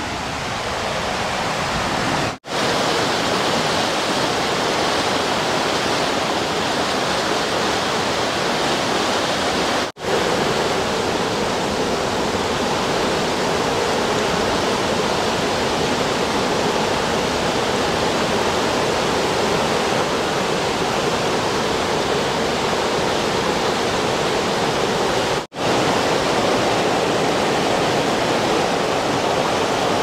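River rapids rushing over rock in a steady, full rush of water, broken by three momentary gaps.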